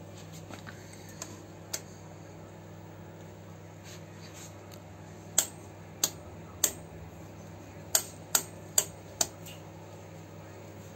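Rotary coarse-voltage selector switch on a VIP-009 bench power supply clicking from one detent to the next as it is turned. A few faint clicks come first, then three loud clicks about half a second apart, then four more in quicker succession.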